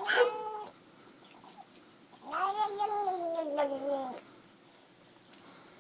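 Domestic cat making a weird, drawn-out call in response to being scratched on its back: a short call, then a longer one of about two seconds that rises a little and then slowly falls in pitch.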